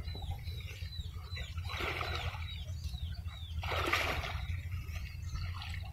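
Creek water splashing twice as large woven baskets are dipped and dragged through it, with a small bird chirping repeatedly, a few short falling chirps a second. A steady low rumble lies underneath.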